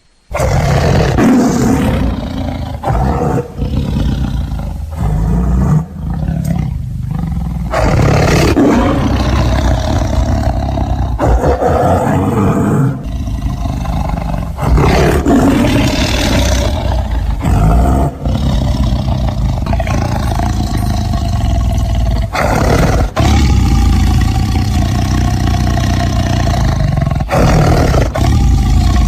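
Tiger roaring loudly again and again, deep calls that run together with only brief breaks between them.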